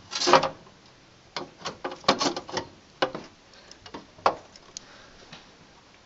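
A scatter of short clicks and small knocks, irregularly spaced, made by hands handling parts at the CPU heatsink on a motherboard inside a desktop PC case.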